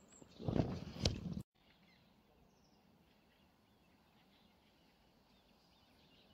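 A short burst of rumbling noise with a sharp click in it, starting about half a second in and cutting off abruptly after about a second. Then a faint, quiet background with scattered faint bird chirps.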